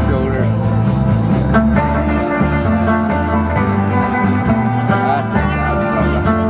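Loud music with guitar over a bass line that moves in steps.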